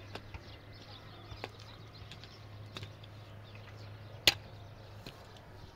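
Hand-tool strikes at a house-building site: about five sharp knocks roughly a second or so apart, chopping or hammering, the loudest about four seconds in.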